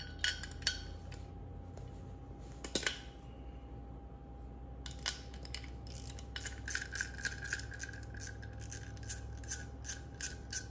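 Hand ratchet with a 12 mm deep socket clicking as it loosens the pin on a motorcycle's rear brake caliper carrier: a few scattered clicks at first, then a quick, even run of ratcheting clicks from about six seconds in.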